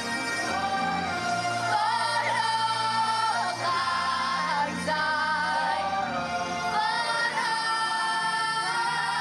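Women's voices singing long held notes with vibrato in close harmony, over steady backing music.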